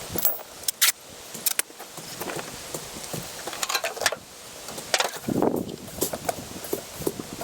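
Scattered clicks, light knocks and rubbing sounds of hands-on work: the steel post being handled and wiped down with acetone to degrease it.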